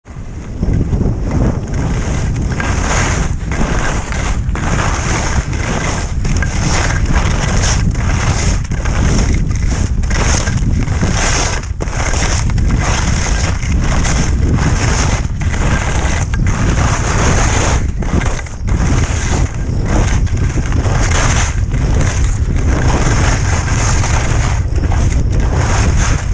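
Ski edges scraping over firm groomed snow, the noise swelling and dipping with each turn about once a second, under a steady rumble of wind buffeting the camera microphone.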